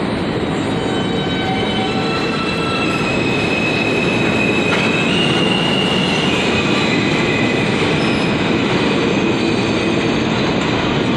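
An R160A subway train leaving the station and running off into the tunnel: a loud steady rumble of wheels on rails, with several high whining tones over it that shift in pitch around the middle.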